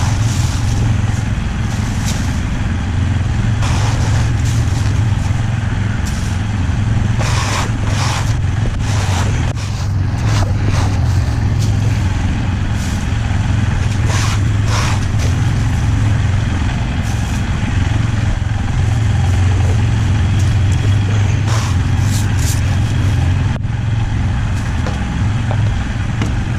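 Kymco MXU 450 ATV engine idling steadily, with short bursts of hissing noise and clatter scattered over it.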